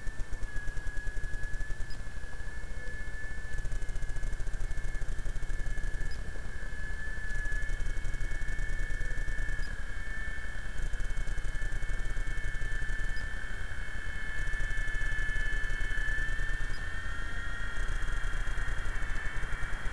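RC helicopter's motor and rotors giving a steady high whine whose pitch wavers and rises a little near the end, over a fast, rhythmic low buzz.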